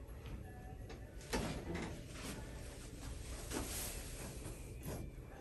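A few soft knocks and rustles of bodies and hands moving on a chiropractic treatment table, the loudest a thump about a second in.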